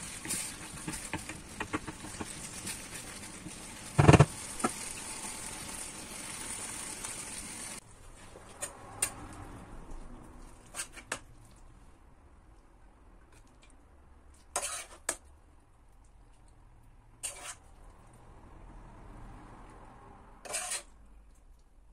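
Pepper, onion and tomato stew sizzling in a frying pan while being stirred with a wooden spoon, with a loud knock about four seconds in. The sizzle stops abruptly about eight seconds in; after that come scattered scrapes and taps of a metal spoon against the pan as the stew is spooned out.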